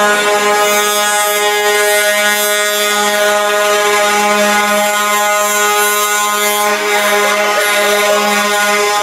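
A loud, steady horn tone held at one pitch without a break, most likely truck air horns sounding as the parade trucks pass.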